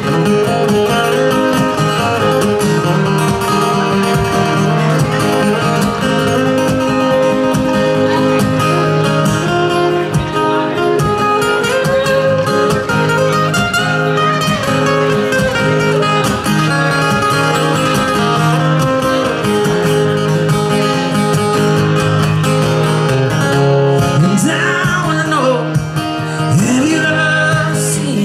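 Live acoustic guitar strummed steadily, with a man singing along at times.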